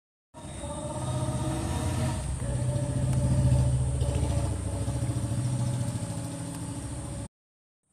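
A motor vehicle's engine running steadily close by, growing louder to a peak about halfway through and then fading, as if passing. It cuts off abruptly near the end.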